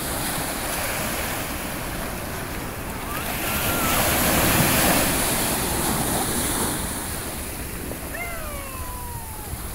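Surf washing up the beach, with a wave breaking and the wash swelling louder about four seconds in, and wind on the microphone. A few faint, short falling whistle-like calls come near the end.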